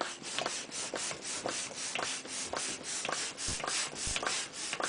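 Hand balloon pump being worked quickly to inflate a clear latex balloon. Each stroke gives a short rush of air, in a quick, even rhythm of about four to five strokes a second.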